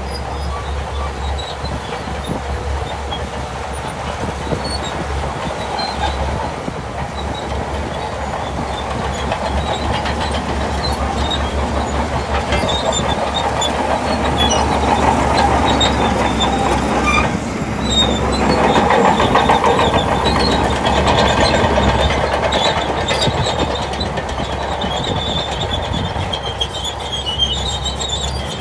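Shantui DH17C2 crawler bulldozer working, its engine and steel tracks running continuously and getting louder through the middle.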